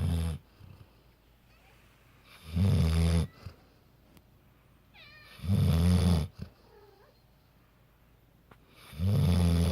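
Yellow Labrador retriever snoring in its sleep: low rumbling snores about every three seconds, each lasting close to a second.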